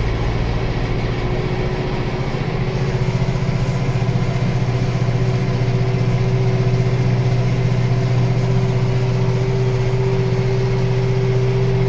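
Zetor Proxima GP 110 tractor's four-cylinder diesel engine pulling steadily under load up a climb with a loaded log trailer, heard from inside the cab as an even hum that swells a little about three seconds in.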